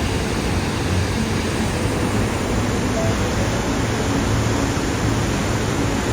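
Steady rushing roar of a waterfall, an even wash of noise with no breaks.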